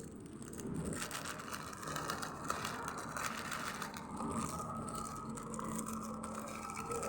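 Plastic claw hair clips and their packaging being handled: irregular clicking, clattering and rustling.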